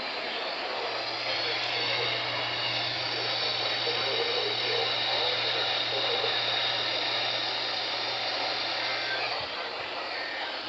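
Weather radio receiver picking up a weak broadcast: steady static hiss with a faint, buried signal and a low hum under it, which cut off about nine seconds in.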